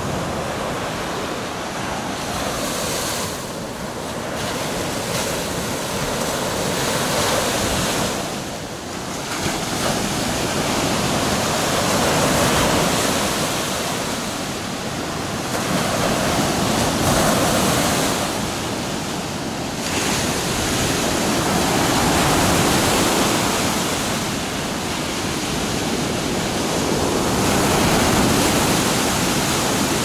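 Baltic Sea surf on a sandy beach: small waves breaking and foaming up the shore in a steady wash that swells and eases every four to five seconds.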